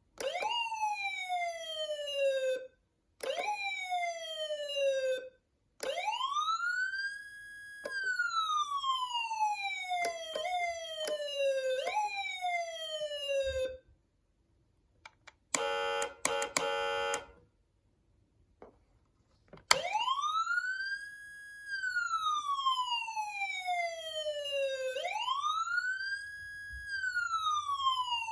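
Federal Signal Unitrol Touchmaster Delta electronic siren cycling through its tones. First come two short sweeps that jump up and slide down. Then slow wail cycles rise to a held peak and fall, with a few quick chirps cutting in; after a pause there is a brief pulsing horn tone, and near twenty seconds in the slow wail resumes.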